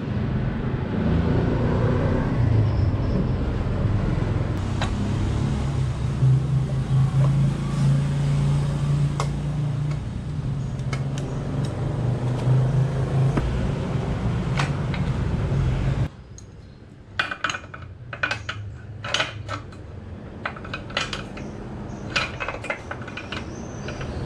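A steady low engine drone. It cuts off abruptly about two-thirds of the way in and gives way to light metallic clinks and taps, like hand tools being handled.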